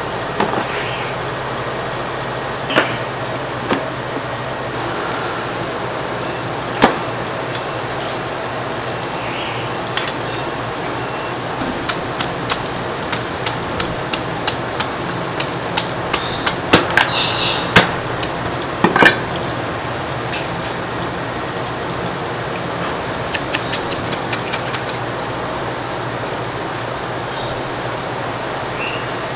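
Cleaver chopping into a split suckling pig carcass on a wooden chopping board, over steady background noise. A few scattered sharp knocks come first, then a run of roughly one knock a second through the middle, and a short quick cluster near the end.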